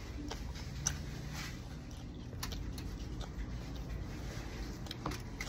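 Scattered light clicks and taps, a few seconds apart, over a steady low hum.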